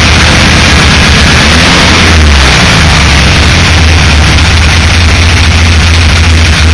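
Volkswagen Type II bus 1600cc air-cooled flat-four engine running loudly, with engine speed rising and falling briefly about two seconds in. It carries a knocking noise that the owner suspects comes from a loose cooling fan.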